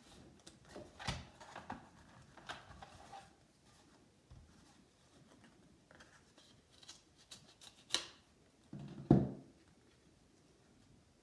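Small scissors snipping several times through the edge of a cardboard software packet, with paper rustling between the cuts. About nine seconds in comes the loudest sound, a dull thump as the scissors are set down on the table mat.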